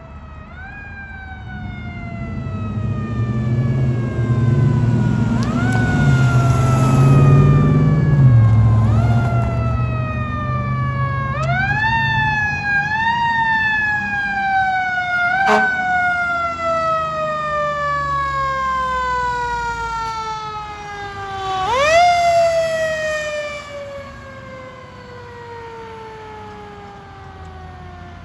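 Fire apparatus siren, wound up again and again with quick rises, each time coasting slowly down in pitch, typical of a mechanical siren. A heavy fire truck engine swells loud a few seconds in as the truck passes. One more wind-up comes about 22 seconds in, then the sound fades.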